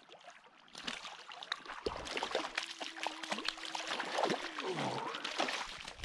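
Water splashing and trickling as a hooked brook trout thrashes and is scooped into a landing net in a shallow stream, starting about a second in.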